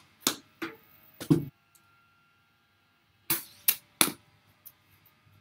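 Sharp knocks and cracks from backyard cricket gear, ball and bat. Two come in quick succession, then the loudest about a second in; a second cluster of three follows a little past three seconds in, with a fainter knock later.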